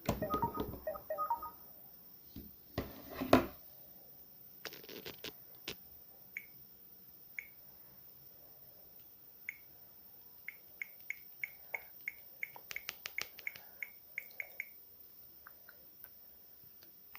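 Mobile phone keys being pressed. A brief cluster of electronic tones comes first, then faint clicks and short high beeps: single beeps at first, then a quick run of several a second about ten seconds in.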